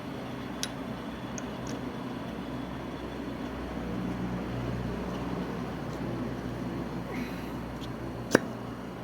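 A low, steady machine-like hum with a few light ticks and one sharp click about eight seconds in.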